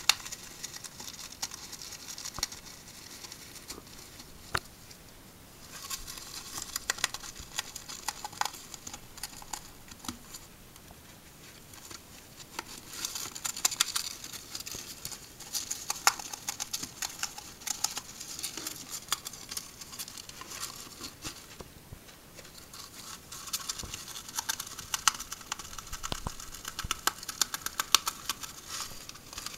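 Hamster gnawing and tearing at a cardboard toilet roll tube: rapid, crackly nibbling in spells, with a few short pauses between.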